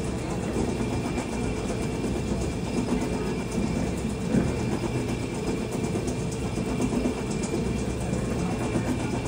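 Taffy-pulling machine running, its motor and gears giving a steady mechanical hum as its arms stretch and fold the taffy.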